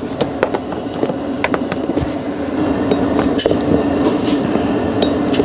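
Dry rice being scooped from a plastic storage container into a rice cooker's metal inner pot: grains rattling and pouring, with clinks and knocks of the pot and container lid. A steady low hum runs underneath.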